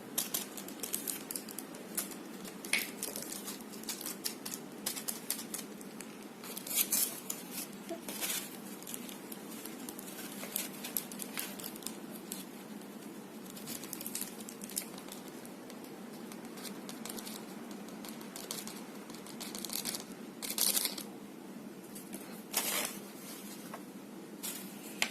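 Scattered light clicks, taps and rustles of small plastic pieces and packaging being handled, with a few louder rustling bursts a little past a quarter of the way through and again near the end.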